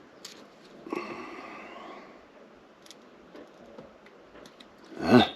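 Faint handling noises with a brief squeaky scrape about a second in, then near the end a short, loud grunt-like exhale from a man, falling in pitch.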